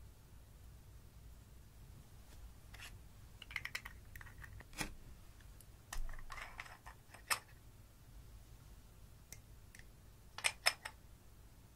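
Scattered small sharp clicks and light taps from handling makeup containers, a glass nail polish bottle and an applicator brush over glass baking dishes, with a short soft rustle about six seconds in and a quick run of clicks near the end.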